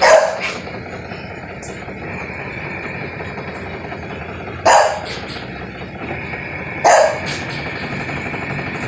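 A dog barks three times, once at the start, once a little before five seconds in and once about two seconds later, over a steady running noise from the washing machine.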